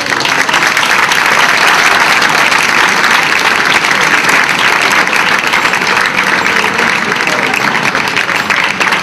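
Large crowd applauding, a dense, steady clapping that holds at an even level throughout, with a few voices calling out near the end.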